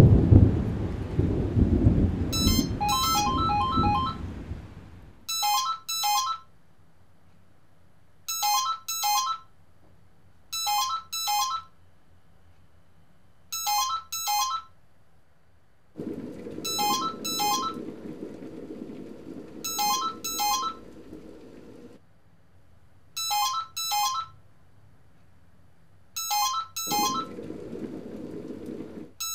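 A rumble of thunder fades out over the first few seconds. Then a home telephone rings on and on without being answered, a double ring about every three seconds. A low steady hum runs under the rings for a few seconds in the second half and again near the end.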